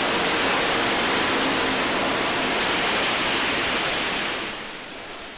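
Steady rushing noise of coal pouring out of railroad cars as they are unloaded, fading away near the end.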